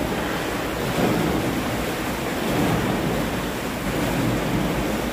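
Dragon boat paddles churning pool water: a steady rushing splash from many paddlers stroking together, swelling slightly with the strokes.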